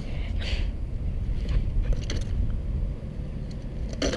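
Steady low rumble of wind on the microphone, with a few light clicks and knocks from a bike being balanced on a stone curb.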